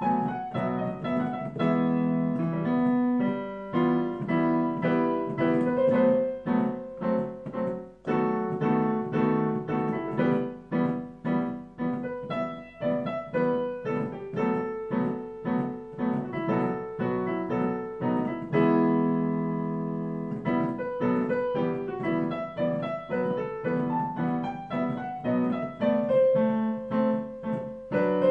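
Piano played as a two-handed improvisation: a running melody over repeated low chords, with one chord held for a moment about two-thirds of the way in.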